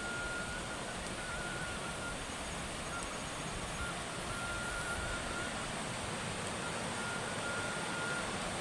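Steady rushing outdoor noise, with a faint thin high tone that comes and goes several times.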